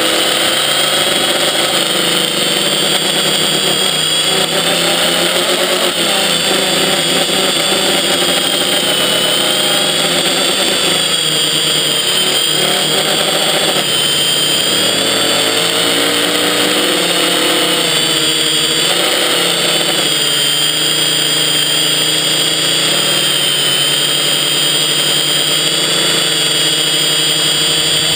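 Brushless motors and propellers of a Quadrixette 30 FPV quadcopter, heard from its onboard camera: a loud, steady whine whose pitch keeps rising and falling as the throttle changes.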